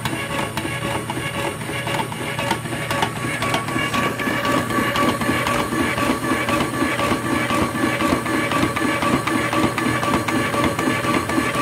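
Cook Essentials electric mandoline's motor running steadily, its spinning thin-slicing disc cutting a cucumber pushed down the feed chute. It makes a steady whine with rapid clicking.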